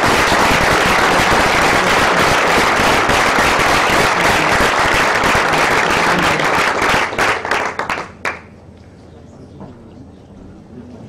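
Audience applauding; the applause thins to scattered claps about seven seconds in and stops about a second later.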